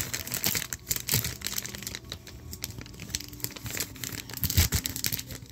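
Air-sealed plastic packaging being crinkled and torn open by hand, a run of irregular crackles, with a dull thump about four and a half seconds in.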